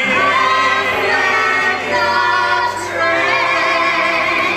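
A cappella vocal quartet singing the last line of a song in harmony, moving through a few notes and then holding a long final chord with vibrato.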